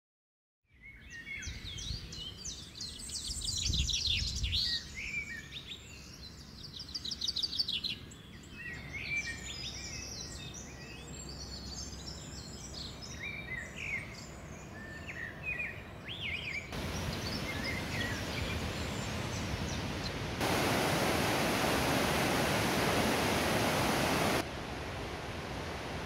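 Several birds chirping and singing over a low, steady rush of water. Then, about two-thirds of the way in, the birds give way to the even, steady roar of the Mae Ya waterfall's falling water, which jumps louder for a few seconds near the end and then drops back.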